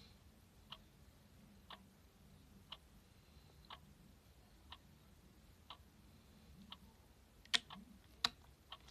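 A clock ticking faintly and evenly, about once a second, with two louder sharp clicks near the end.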